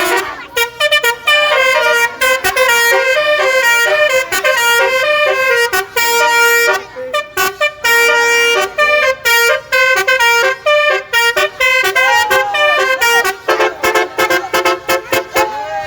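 Musical telolet (basuri) horns playing a quick melody of short stepped notes, several tones sounding together, with brief breaks between phrases.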